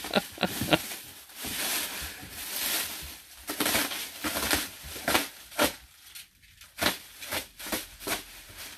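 Plastic stretch wrap on a pallet crinkling and tearing as it is pulled and torn away by hand, in uneven swells of crackling with sharp rips.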